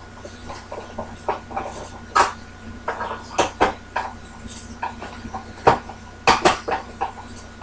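Irregular clicks, taps and knocks of the plastic case of an APC Back-UPS ES 725 battery backup and hand tools being handled on a workbench as the unit is put back together, over a steady low hum.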